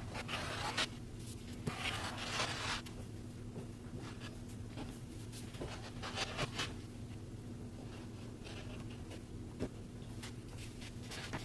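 Rotary cutter slicing through a double layer of double gauze fabric on a cutting mat, in several short scraping strokes, the longest in the first three seconds, with a few light taps between.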